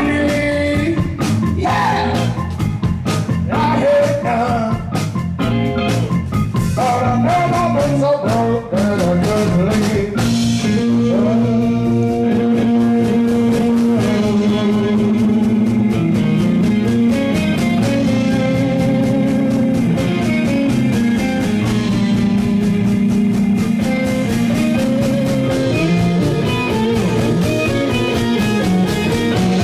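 Rock band playing live in a blues-rock style: dense, hit-heavy playing for about the first ten seconds, then long held chords.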